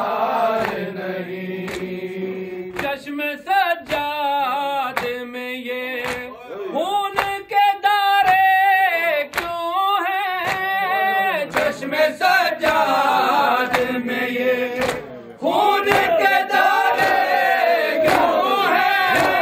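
A group of men chanting an Urdu noha (a Muharram lament) together, punctuated by regular sharp strikes of hands on the chest (matam).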